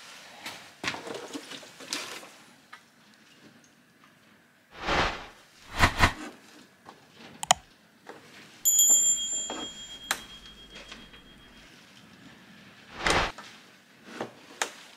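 Handling noise as bar oil is poured from the no-spill nozzle of a plastic Husqvarna Combi can into a chainsaw's oil tank: small clicks and plastic knocks, with a few louder thumps. About halfway through, a short electronic sound effect with a low buzz plays.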